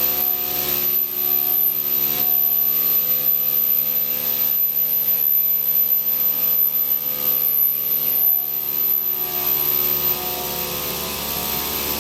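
EVERISING P-230B metal-cutting circular sawing machine running, a steady hum of several tones under a high whine, with a hiss that swells and fades repeatedly.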